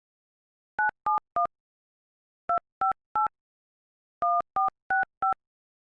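Touch-tone telephone keypad dialing a ten-digit phone number: ten short two-note DTMF beeps in three quick groups of three, three and four.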